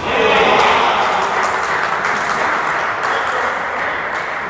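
Crowd cheering and applause for a six: a loud, even roar that starts at once and slowly fades.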